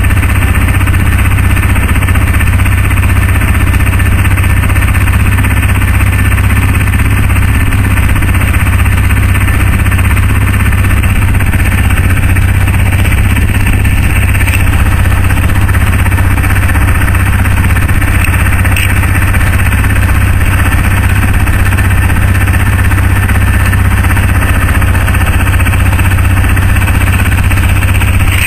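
ATV engine running steadily, loud and close, with a constant deep hum and no change in pace.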